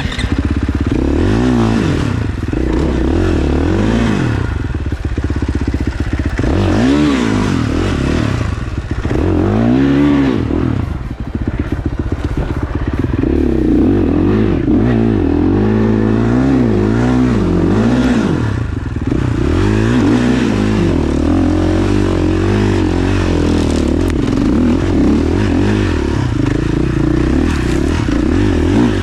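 KTM 450 SXF single-cylinder four-stroke dirt bike engine, revved up and down over and over as the throttle is worked on a climb. The revs swing in short blips during the first half, then hold higher with smaller swings from about halfway on.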